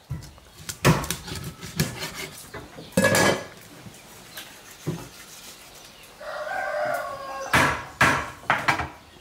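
Sharp knocks of a knife chopping on a cutting board, several times, with a rooster crowing once for a little over a second about six seconds in.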